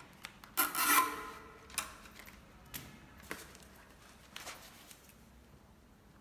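Nylon cable ties being snipped with cutters: a few sharp snips spread over several seconds, with rustling of handled packaging around a second in.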